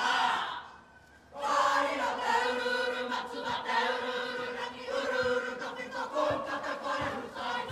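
Kapa haka group of mixed voices singing a Māori song together in chorus, with long held notes. The singing breaks off briefly about a second in, then resumes.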